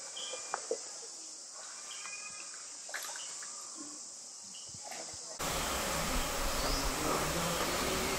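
Insects buzzing in a steady high-pitched drone, with a few faint clicks. About five seconds in, the sound cuts abruptly to a louder, even noise.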